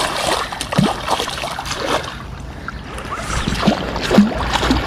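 A hooked pike thrashing at the water surface as it is scooped into a landing net: a run of irregular splashes and sloshing water.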